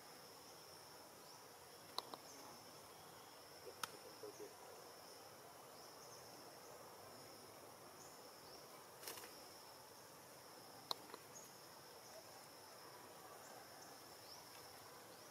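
Faint, steady high-pitched insect chirring, with a few sharp clicks scattered through, the loudest about two and eleven seconds in.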